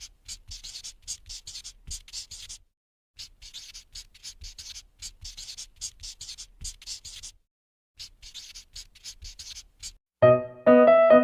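Rapid back-and-forth strokes of a drawing tool scratching on paper, in three runs with short pauses between, about four or five strokes a second. Piano music starts near the end.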